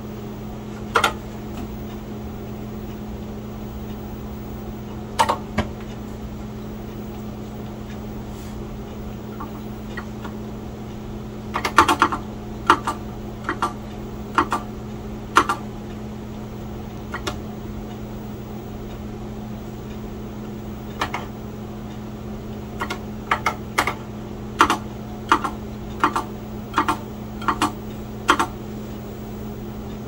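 Keys on a Kaypro II keyboard being pressed in scattered single clicks as a game is played, with a quick cluster about twelve seconds in and a run of presses near the end. A steady low hum runs underneath.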